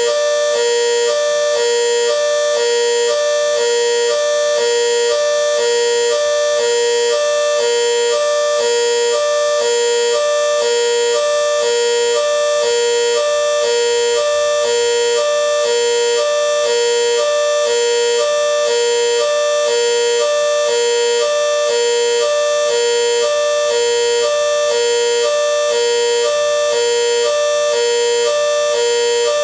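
GS CS-10V15QT alarm signal sounding a hi-lo tone: two pitches alternating in a steady, rapid, even rhythm, loud and unbroken.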